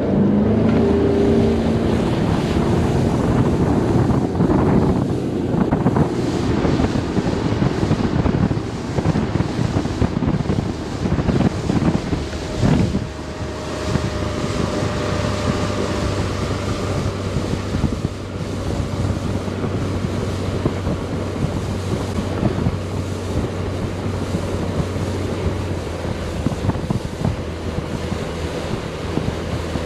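Mercury 150 four-stroke outboard on a Vexus aluminum bass boat accelerating hard out of the hole, its pitch rising over the first couple of seconds, then running steadily at speed. Wind on the microphone and water rushing past the hull run throughout.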